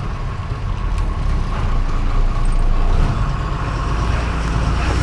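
Heavy truck engine running steadily under way, heard from inside the cab as a loud low drone over road noise.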